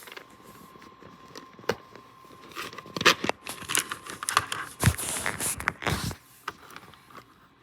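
Irregular handling noises: scraping, crinkling and sharp clicks, busiest from about three to six seconds in.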